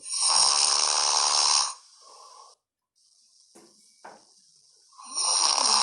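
A man snoring: one loud snore lasting about a second and a half at the start, then a quiet pause, and another snore beginning near the end.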